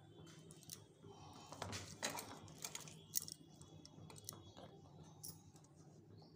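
Faint wet squelching of a hand mixing thick gram-flour pakora batter in a steel bowl, with scattered small clicks.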